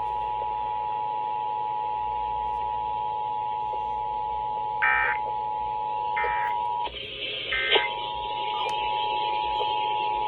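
Emergency Alert System two-tone attention signal heard over FM radio: a steady, shrill dual-tone alarm that cuts out for just under a second about seven seconds in. Three short, higher warbling bursts sound over it about five, six and seven-and-a-half seconds in.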